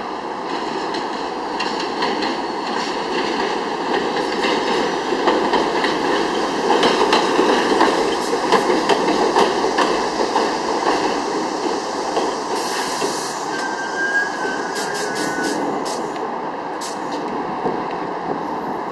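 R62A subway train pulling into a station: steel wheels rumbling and clicking over the rails, loudest about halfway through as the cars pass close, then easing off as it slows, with a short hiss and a brief faint squeal in the second half.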